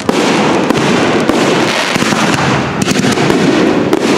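Aerial fireworks display: a continuous barrage of crackling from bursting shells, with many sharp bangs and a quick cluster of them about three seconds in.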